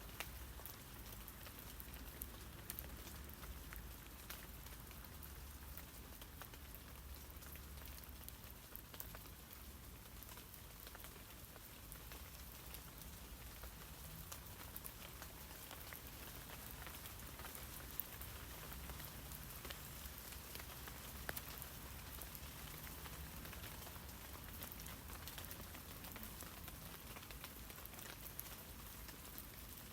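Steady rain falling on tree leaves, with many small drops pattering at close range and a few louder single drops standing out now and then.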